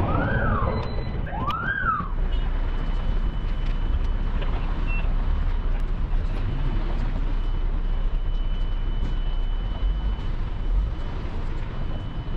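An emergency vehicle's siren gives two rising-and-falling whoops in the first two seconds. Steady street noise with a low rumble follows, and a faint high steady tone comes and goes.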